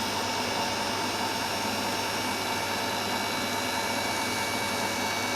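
Ryobi 18V cordless caulk gun's electric drive motor running steadily at its fast setting, a constant whine over a hiss.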